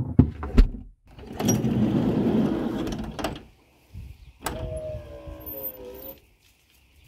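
A van's sliding side door being worked: a loud rolling slide along its track, then a sharp latch click followed by a falling squeal that lasts about a second and a half.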